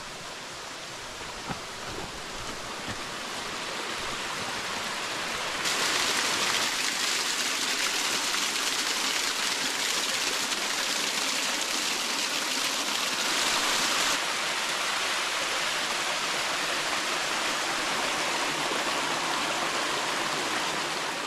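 Small waterfall splashing down rocks into a stream, a steady rush of water. It builds over the first few seconds, is louder from about six seconds in, and eases slightly at about fourteen.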